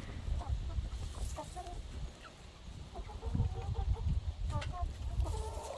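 Chickens clucking softly with short, scattered calls, over a low rumble.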